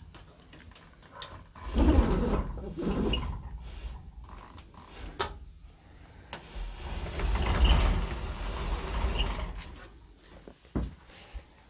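Old wooden door being dragged open, scraping and rumbling in two long pushes, with a few sharp clicks in between.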